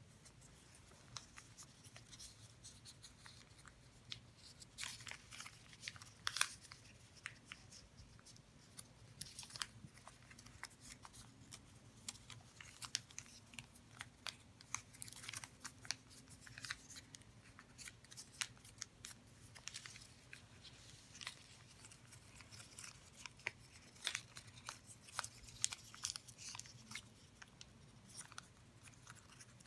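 Origami paper being folded and creased by hand: irregular soft crinkles and rustles with short crisp ticks as the folds are pressed, over a faint steady low hum.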